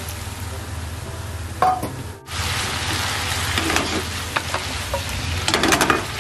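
A stir-fry of bamboo shoots, snow peas and minced meat sizzling in a nonstick frying pan, louder from about two seconds in. A wooden spatula stirs it, knocking against the pan several times near the end.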